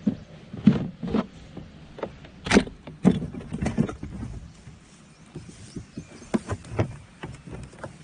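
Irregular clicks, knocks and short rattles from fishing gear being handled in a plastic kayak.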